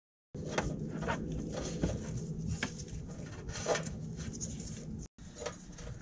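Handling noise of a thin wire being pushed by gloved hand through a hole in a steel vehicle frame: faint scrapes and light clicks over a steady low background hum. The sound is cut out for a moment at the start and again about five seconds in.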